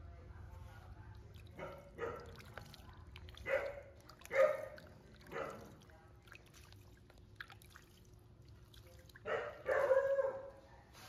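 A baby macaque giving short cries, about five in the first six seconds, then a longer, louder call near the end, over faint sloshing of water in a plastic basin.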